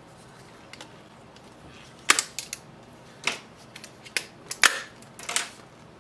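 Sharp plastic clicks and snaps, about half a dozen starting two seconds in, as orange plastic shipping clips and tabs are pulled off a laser printer's toner cartridge.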